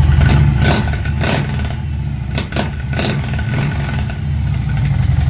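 Old motorcycle engine running steadily just after a cold start, with several sharp clicks or knocks over the first three seconds.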